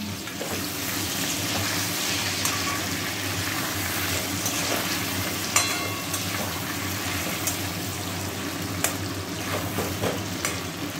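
Potato chunks sizzling as they fry in hot oil in a kadai, with a spatula scraping and tapping against the pan now and then as they are turned.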